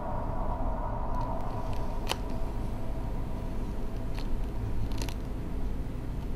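Scissors snipping through a gauze bandage: a few short, sharp snips spaced a second or two apart over a low, steady drone.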